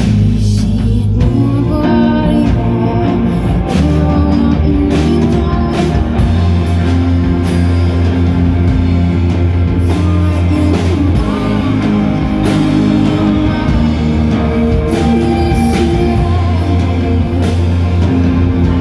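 Live rock band playing: electric guitar chords over a heavy, sustained low end, with drum hits and a singing voice.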